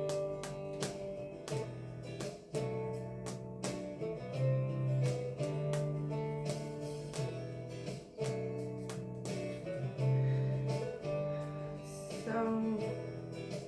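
Background music led by a plucked guitar, with low bass notes changing every second or two.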